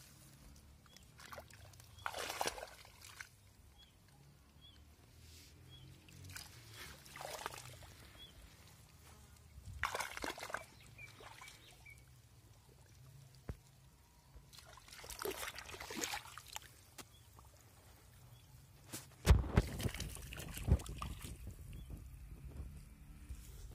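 Muddy irrigation water trickling along a furrow, with bouts of splashing and sloshing every few seconds as hands push seedlings into the wet soil at its edge. The loudest bout, near the end, carries a low thump.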